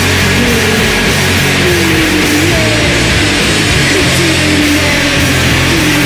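Loud, aggressive heavy rock music with distorted guitar, playing steadily without a break.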